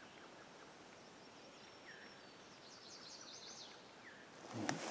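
Faint songbirds calling in woodland: thin high notes and short falling chirps, with a quick twittering run about three seconds in. A rustle and a sharp click near the end.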